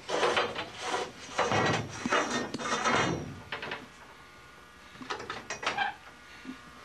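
Aileron control linkage and stick in a steel-tube aircraft fuselage being moved by hand: irregular metallic rattles, knocks and scrapes, busiest in the first few seconds, with a few more about five seconds in.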